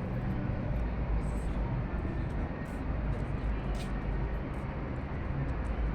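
Outdoor crowd ambience: indistinct voices over a steady low rumble, with a few faint clicks.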